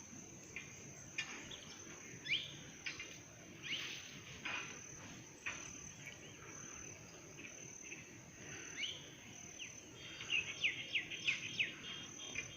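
Forest ambience: a steady, high insect drone runs throughout, with birds giving short chirps and quick rising calls every second or two, and a faster run of chirps near the end.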